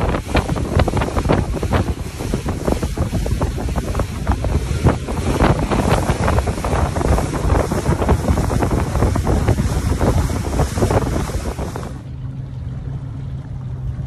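Wind buffeting the microphone over the rush and splash of water from a boat under way at speed. About twelve seconds in it cuts to a much quieter, steady low hum.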